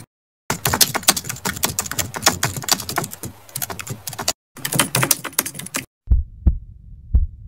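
Keyboard typing sound effect: two long runs of rapid clicks. Near the end come two deep heartbeat thumps, each a double beat.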